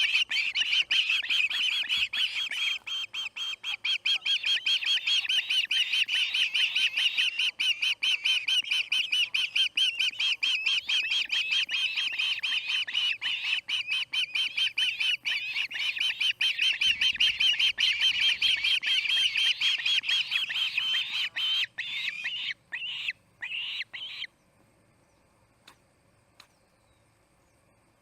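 Osprey screaming: a rapid, unbroken run of high, repeated chirping calls that breaks up into a few last separate calls about three-quarters of the way in and then stops.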